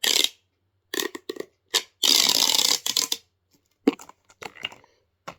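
Handling noises as small plastic toys are picked up and moved about: short rustles and clicks, with a longer rustling scrape lasting about a second, starting about two seconds in.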